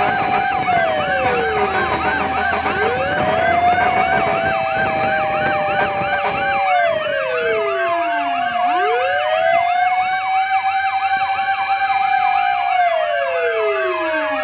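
Several fire truck sirens sounding together. A fast yelp repeats about four times a second over slower wailing sirens whose pitch falls away low and climbs back up three times.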